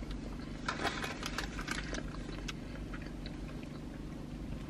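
Chewing and small mouth clicks from people eating burgers, mostly in the first two seconds, over a steady low hum in the car cabin.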